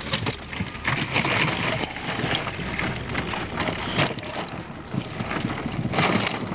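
Irregular knocks and clatter of fishing rods and tackle being handled against a boat deck.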